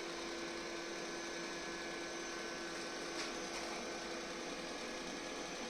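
MOVA robot vacuum cleaner running steadily, its suction fan and drive motors humming with one steady tone as it makes its own way back to its charging dock. A light click sounds about three seconds in.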